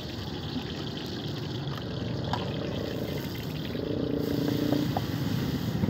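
Chopped garlic sizzling in hot oil in a steel wok, over a steady low rumble. From about four seconds in, a steady engine hum joins and the whole grows louder.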